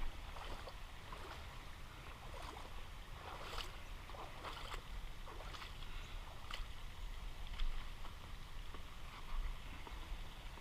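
Water splashing and sloshing in irregular strokes as someone wades barefoot across a shallow river, with a steady low rumble underneath.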